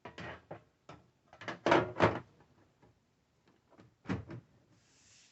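Sheet-metal top cover of an HP DL160 G6 rack server being set on the chassis and slid shut: a series of metal clanks and scrapes, loudest about two seconds in, then one more knock about four seconds in.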